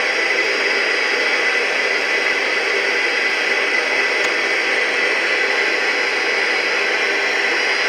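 Steady hiss of static from a weather radio receiver, with no voice coming through and a faint thin tone running underneath.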